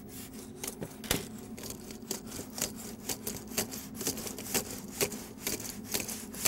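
Monkey shadow puppets on rods bouncing on the stage, tapping and scraping against it about twice a second, with rubbing in between.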